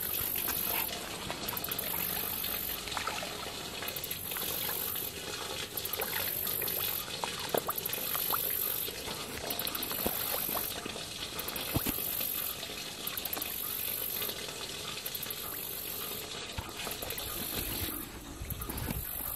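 Fish feeding at the surface of a pond: scattered small splashes and plops in the water. A high-pitched buzz pulses on and off every second or so behind it.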